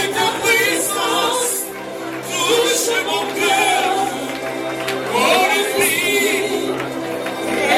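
Gospel worship singing in phrases over steady held chords.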